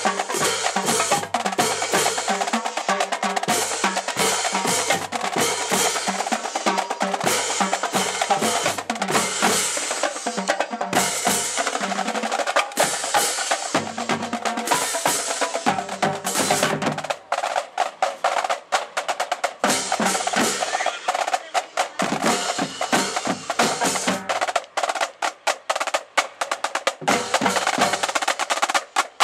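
Marching drumline playing a cadence together, with snare drums, tenor drums and bass drums in a fast, dense rhythm. About two-thirds of the way through, the low bass-drum notes mostly drop out, leaving the snares and tenors, and they come back in near the end.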